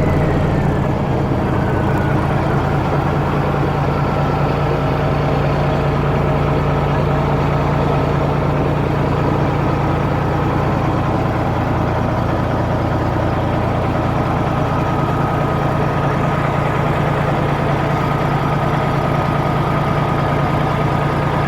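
Caterpillar diesel engine in a Kenworth W900 idling steadily. A high whine in it falls in pitch over the first few seconds, then holds steady.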